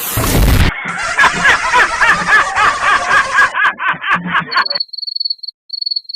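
Comedy sound effects: a loud burst of sound cuts off under a second in, then a rhythmic snickering laugh for about four seconds, then a cricket chirping in two short high trills.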